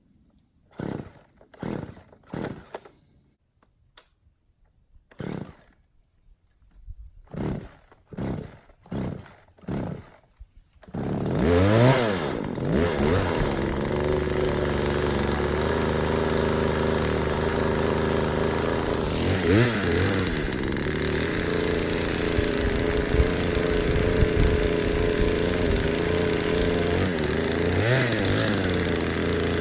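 Poulan Pro two-stroke chainsaw being pull-started: about ten short yanks of the starter rope, then the engine catches about eleven seconds in and keeps running, revved up and back down three times.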